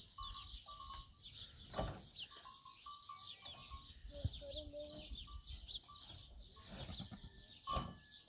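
Goats bleating now and then, with small birds chirping throughout; one longer bleat comes about four seconds in.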